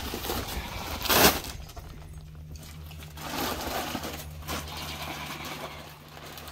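Heavy feed sacks being shifted and dropped in a pickup truck bed: one loud thud about a second in, with rustling and scraping of the bags throughout. A low steady hum runs underneath.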